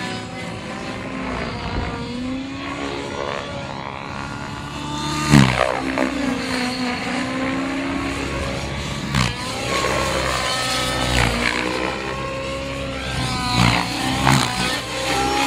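Radio-controlled model helicopter in flight, its motor and rotor drone swooping down and up in pitch several times as it manoeuvres.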